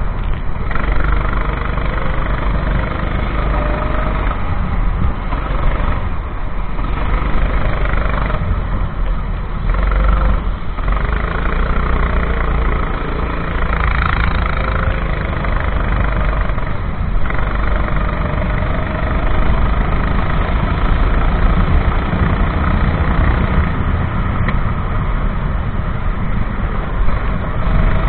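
Racing kart engine running at race speed, its pitch rising and falling as it speeds up and slows down, under a dense rushing noise.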